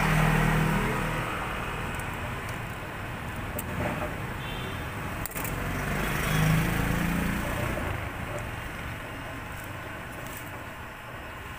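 A motor vehicle engine runs nearby, swelling at the start and again about six seconds in, then fading. A few light clicks come from handling the metal umbrella shaft and ribs.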